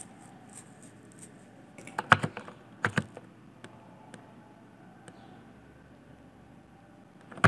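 A few sharp computer keyboard and mouse clicks over a low room background: a cluster about two seconds in, two more about a second later, and another near the end.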